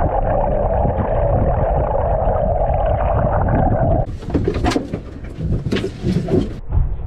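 Muffled underwater sound beside a boat hull: a low rumble with a steady drone. About four seconds in it changes abruptly to sharp splashing and sloshing as the camera breaks the water's surface.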